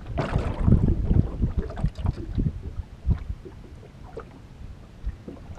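Wind buffeting a boat-mounted microphone, with choppy water lapping against the boat's hull. It comes in irregular low gusts, heavier in the first couple of seconds, then easing off.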